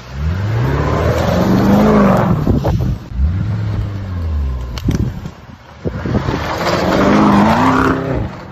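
Lamborghini Urus's twin-turbo V8 revving in three surges, the pitch climbing and then falling each time; the loudest come about two and seven seconds in.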